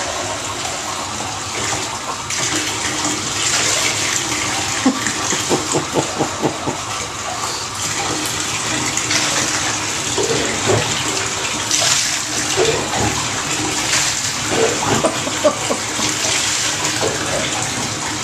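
Water running and splashing in a bathtub while a small Yorkshire terrier is washed by hand, with a steady rush and clusters of splashes about five seconds in and again later.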